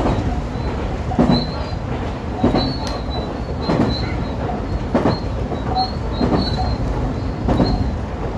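A 125 series electric railcar running along the track, its wheels clacking over rail joints about once every 1.2 seconds over a steady low rumble, with faint short high-pitched squeals.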